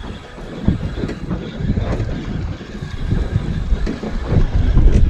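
Wind buffeting the microphone: an uneven low rumble that eases briefly at the start and then builds again.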